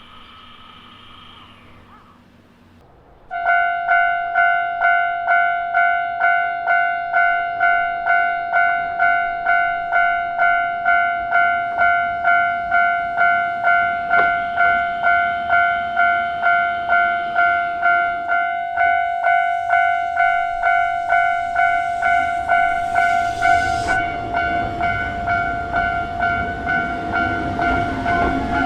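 Japanese level-crossing warning bell, the electronic 'kan-kan' alarm, starting about three seconds in and ringing steadily a little under twice a second. Near the end the rumble of an approaching train rises beneath it.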